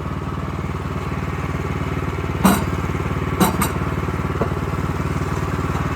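Bushlander HM122 sawmill's engine running steadily, with a sharp knock about two and a half seconds in and two more close together about a second later.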